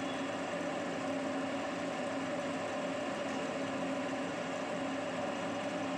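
Ceiling fan running: a steady hum with a few held tones over an even background rush.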